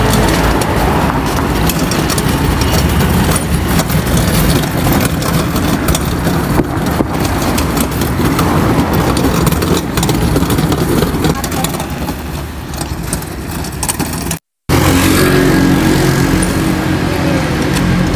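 Loaded platform hand cart rolling over asphalt: its small hard wheels rumble and rattle continuously, with the stacked books and box clattering on the deck. The sound drops out for a moment near the end.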